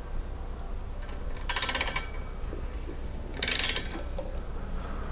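Socket ratchet clicking in two quick runs of about half a second each, one about a second and a half in and one about three and a half seconds in, as a bolt is snugged to clamp a motorcycle fork tube in the triple tree.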